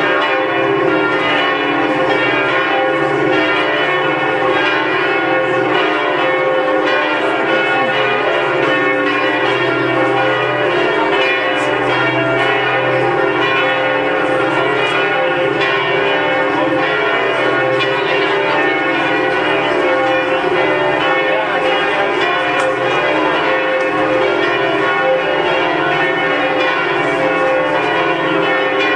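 Notre-Dame de Paris cathedral bells ringing together, loud and without a break, their many tones overlapping into one continuous peal.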